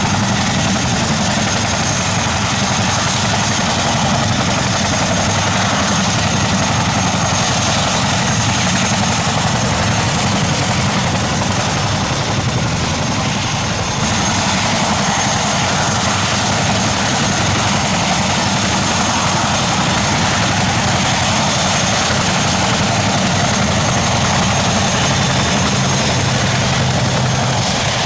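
Propeller engines of RAF trainer aircraft running steadily on the ground: a Grob Tutor's piston engine, then a Shorts Tucano's turboprop. A thin, steady high whine sits over the engine noise, and the sound gets brighter about halfway through.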